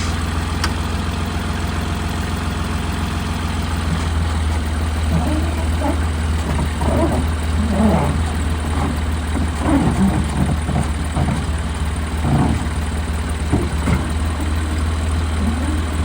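Engine idling steadily, with people's voices talking over it from about four seconds in.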